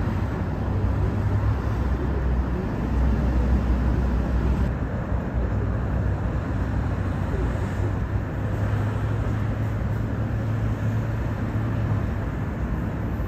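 Steady city street traffic: the mixed hum and low rumble of many cars and buses on a busy multi-lane road. The sound shifts slightly about five seconds in.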